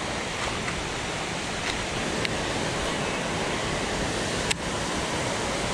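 Water rushing steadily over a low dam and through a rocky creek, an even white-water hiss, with one sharp click about four and a half seconds in.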